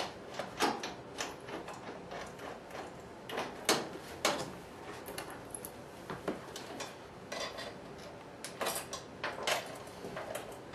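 Metal TV-mount bracket, bolts and washers being fitted by hand to the back of a plasma TV: irregular clinks, clicks and taps of metal hardware against the set's plastic back, the loudest knocks about a second in and around four seconds in.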